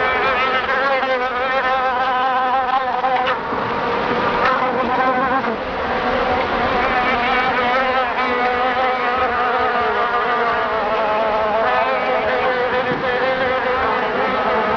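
Flies buzzing continuously, several overlapping wavering drones.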